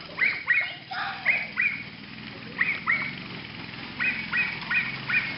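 An animal's short, high-pitched calls, each falling in pitch, given in quick pairs and then a run of four near the end.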